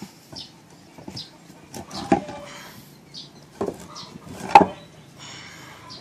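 Heavy ebony billets knocking against one another as they are handled. There are three sharp wooden knocks about two, three and a half and four and a half seconds in, the last the loudest.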